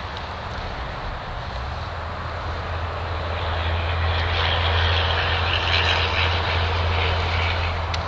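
A steady engine drone with a low hum, growing louder through the middle and easing off near the end.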